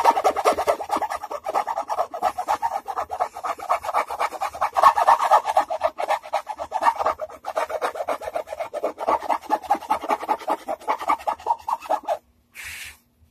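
A hand file rasping against the wooden edge of a guitar body in quick back-and-forth strokes, several a second, rounding the edge over at an angle. The filing stops about a second before the end.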